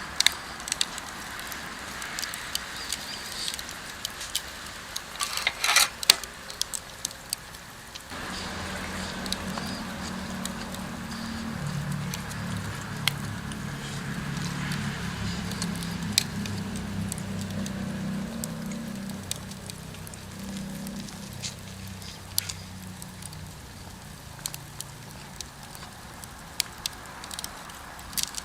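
Wood fire crackling and popping in a campfire pit, with scattered sharp snaps. A low steady hum comes in about eight seconds in and fades out a few seconds before the end.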